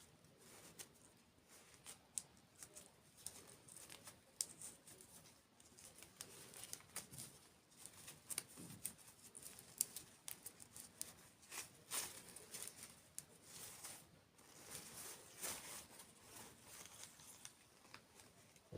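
Faint, close-miked eating and food-handling sounds: many scattered small clicks and crackles, some in quick clusters.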